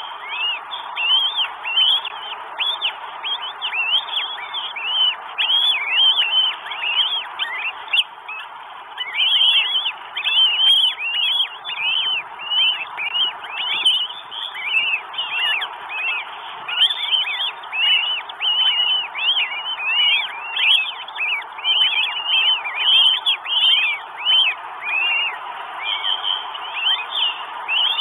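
Northern goshawk calling at the nest: a long run of short, high, arching calls, several a second, with brief pauses, over a steady hiss.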